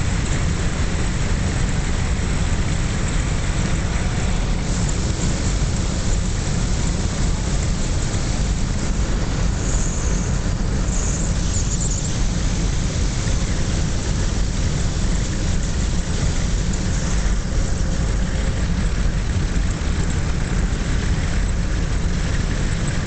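Steady, loud rumble of wind, road and engine noise inside a 1957 Chrysler Windsor cruising at speed.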